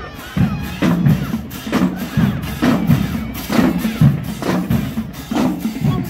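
Marching band drumline playing a steady marching beat, with bass drums hitting about twice a second.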